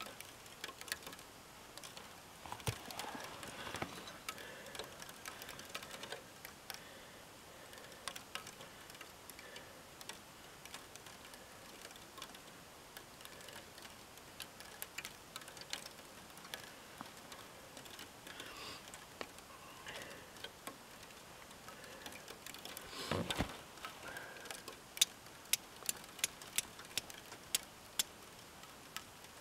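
Faint, scattered sharp clicks, with one duller knock about two-thirds of the way through, then a quick run of about eight crisp clicks near the end.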